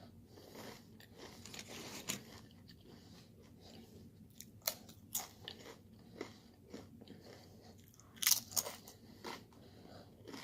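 A person chewing food close to the microphone, with a few scattered crisp crunching bites, the loudest a quick cluster about eight seconds in.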